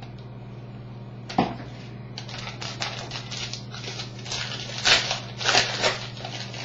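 Baseball trading cards and their packs being handled: a sharp click, then a quick run of papery rustles and flicks, loudest near the end, over a steady low hum.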